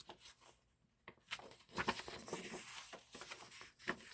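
Sheets of scrapbook background paper rustling and crinkling as they are handled and turned over. It starts with a few soft ticks and grows louder about a second in.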